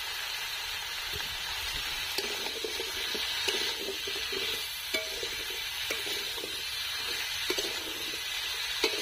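Pumpkin chunks and vegetable stalks sizzling in hot oil in an iron kadai, stirred with a long metal spatula. From about two seconds in, the spatula scrapes the pan and knocks against it now and then.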